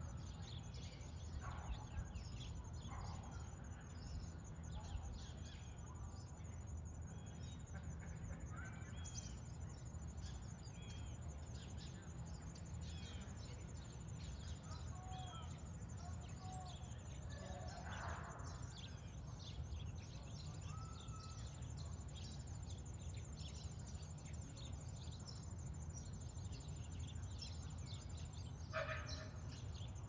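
Faint outdoor ambience: scattered small bird chirps and calls over a low, steady rumble.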